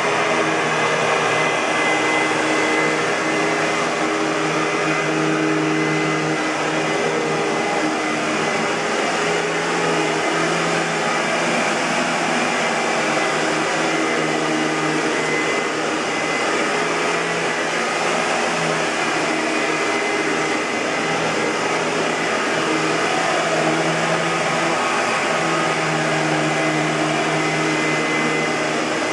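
Hoover WindTunnel bagless twin-chamber upright vacuum cleaner running steadily: a motor hum and air rush with a faint high whine, the hum swelling and easing slowly as the cleaner is worked.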